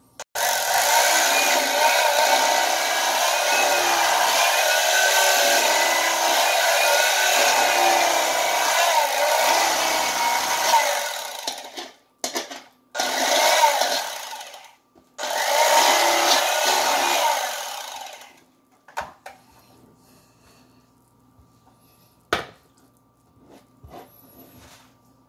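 Electric fillet knife running as it slices catfish fillet: one long run of about ten seconds, then two shorter runs, the motor's whine wavering in pitch. After that it is switched off, leaving a few light taps.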